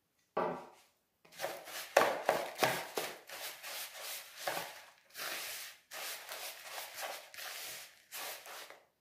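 A hand and a spoon working cassava starch moistened with boiling water in a plastic bowl: irregular dry rubbing and scraping strokes, one after another.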